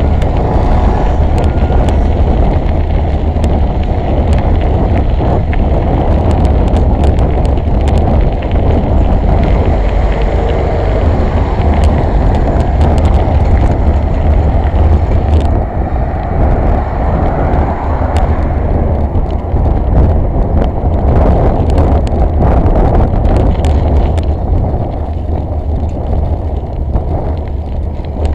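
Wind and road noise on a bicycle-mounted camera while riding, at first on a gravel path: a steady low rumble with frequent clicks and knocks from bumps. The hiss in the upper range eases from about halfway through.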